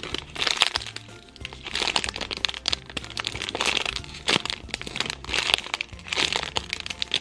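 Clear plastic packaging crinkling and crackling in irregular bursts as a squishy toy is squeezed and turned inside its bag, over soft background music.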